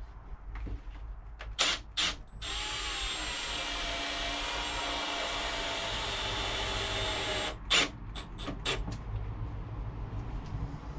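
Small power drill running steadily for about five seconds, with a few sharp clicks just before it starts and again just after it stops.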